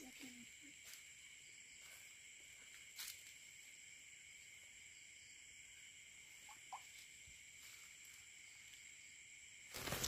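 Faint night insect chorus: steady, high, unbroken trilling tones, with a few soft clicks in the first few seconds.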